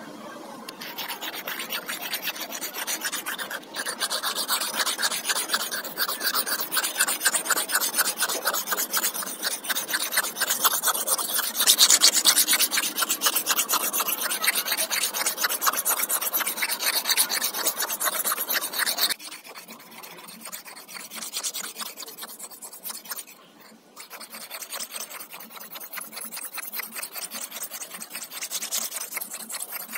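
Steel knife blade stroked rapidly back and forth across a sharpening stone, a steady rasping scrape as the edge is honed. About two-thirds of the way through the strokes become quieter, with a brief pause shortly after.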